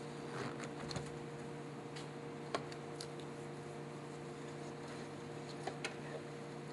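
Scattered light clicks and taps of hands working on the plastic factory airbox and intake hose of a Porsche 996, over a steady low hum.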